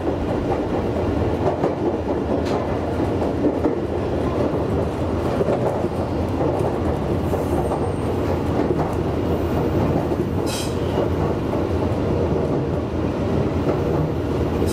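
Meitetsu 6800-series electric train running along the track, heard from inside the car: a steady rumble of wheels on rail, broken by two short sharp clicks, one early on and one about two-thirds of the way through.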